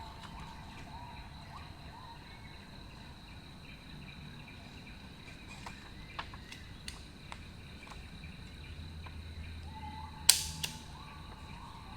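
Kangaro HP-15 stapler stapling: a few faint clicks, then one sharp loud clack about ten seconds in as the staple is driven, with a smaller click just after.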